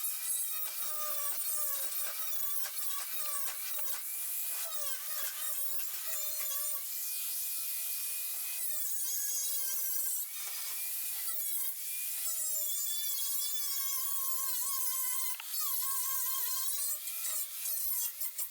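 Power tool spinning a wire wheel, stripping paint off sheet steel: a motor whine that sags and recovers in pitch as the wheel is pressed on and eased off, over a scratchy hiss, with brief let-ups about ten and fifteen seconds in. The bare metal is being cleaned for plug welds.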